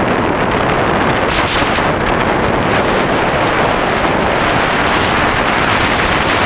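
Loud, steady wind rushing over the microphone of a camera riding on a moving motorbike.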